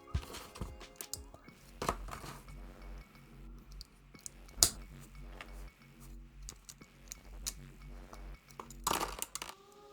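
Hard plastic LEGO pieces clinking and clattering in scattered sharp clicks, the loudest about four and a half seconds in and a cluster near the end, over soft background music.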